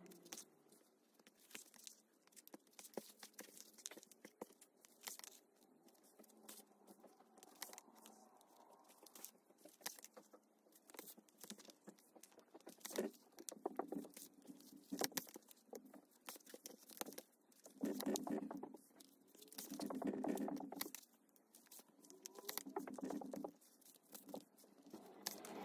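Hand-stitching leather with two needles: faint clicks and ticks of the needles working through the stitch holes. Several times the thread is drawn through with a longer rasping pull.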